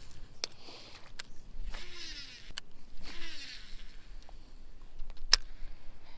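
Fishing line pulled off a baitcasting reel in three short zipping whirs, each winding down in pitch as the spool slows, with about four sharp clicks from the reel between them, the loudest about five seconds in. The line is being stripped to cut off a frayed section and retie the lure.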